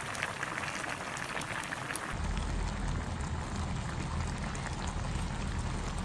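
Pot of spicy braised chicken stew bubbling at a simmer, a dense patter of small pops and crackles. About two seconds in a steady low rumble comes in underneath and runs on with the bubbling.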